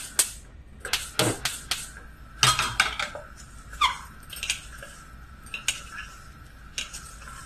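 Wooden spatula stirring vegetable stew in an aluminium pressure cooker, knocking and scraping against the pot in irregular strokes that thin out over the last few seconds.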